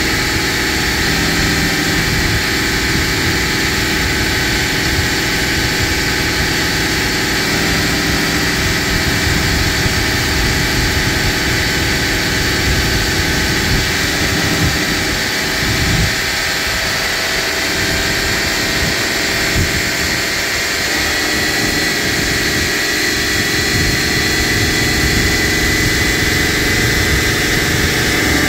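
Vehicle engine idling steadily, heard up close in the open engine bay, with a thin steady high whine running along with it.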